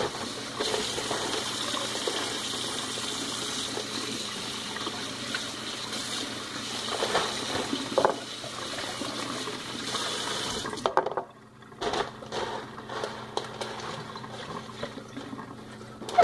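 Kitchen faucet running in a steady stream over raw chicken breasts being rinsed by hand in the sink. The water shuts off about eleven seconds in, followed by a few wet handling sounds and light knocks.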